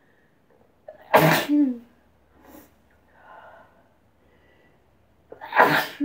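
A woman sneezing twice, about four and a half seconds apart: each a quick intake of breath, then a loud burst that ends in a falling voiced tail.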